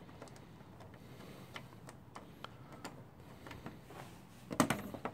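Faint scattered clicks and light knocks of a scooter's plastic front panel being handled and worked loose by hand, with a louder knock near the end.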